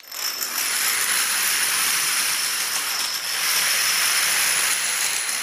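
Many small plastic dominoes toppling in a long, dense, steady clatter.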